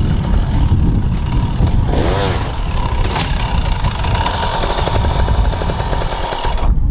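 Dirt bike engine running hard, with clattering and a rise and fall in pitch about two seconds in. It cuts off abruptly near the end.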